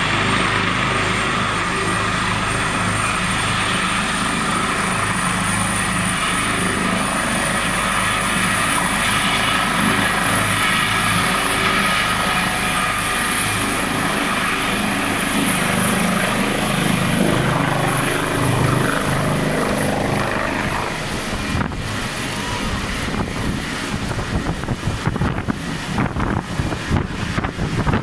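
Airbus H145 air-rescue helicopter running at take-off power as it lifts off and climbs away: a high turbine whine rising slightly in pitch over a steady rotor thrum. From about twenty seconds in, the sound turns gusty and fluttering as wind buffets the microphone.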